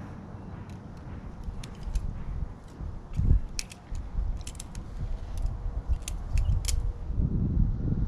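Balisong trainer being flipped: irregular sharp clicks and clacks as the handles swing around and snap shut against the blade. A low thump comes a little after three seconds in, and low rumbling near the end.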